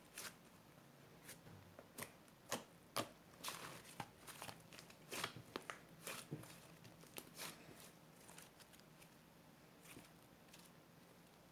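Quiet, irregular clicks and crinkles, like small objects or paper being handled, thinning out over the last few seconds.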